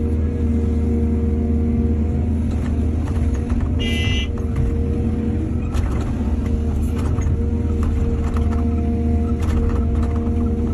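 Excavator's diesel engine running steadily, with scattered knocks and clanks from the work and a brief high-pitched squeal about four seconds in.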